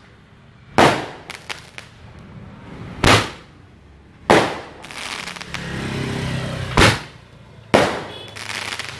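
Consumer fireworks going off: five loud sharp bangs spaced one to two and a half seconds apart, the first followed by a few small crackles.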